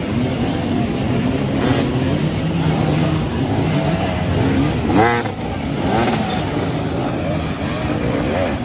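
Several enduro dirt bike engines running and revving together, one revving up sharply about halfway through.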